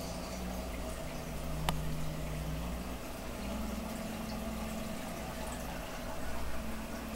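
Aquarium running steadily: water bubbling and trickling over a low pump hum, with one sharp click about a second and a half in.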